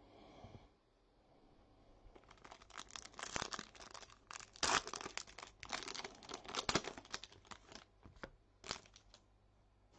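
A foil trading-card pack wrapper being torn open and crinkled in the hands. The crackling starts about two and a half seconds in, is busiest in the middle and dies away a second before the end.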